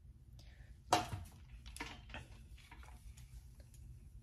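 A sharp click about a second in, then a few softer clicks and taps, from handling a hair flat iron while sectioning and straightening hair. A low steady room hum lies underneath.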